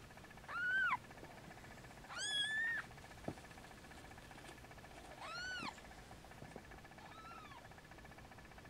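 A cat meowing, high-pitched: three clear meows of about half a second each, each rising and falling in pitch, and a fainter fourth near the end. A single light click falls between the second and third.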